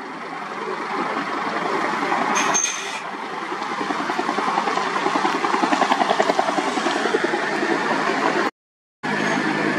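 Helicopter with a two-bladed main rotor flying close by: a steady engine and rotor noise with a fast, even beat of the blades that grows louder through the middle. The sound cuts out completely for about half a second near the end.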